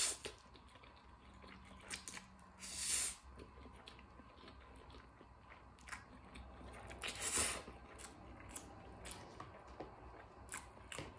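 Eating sounds of a person eating spicy instant noodles: three loud slurps of about half a second each, one at the start, one about three seconds in and one about seven seconds in, with wet chewing and small mouth clicks between them.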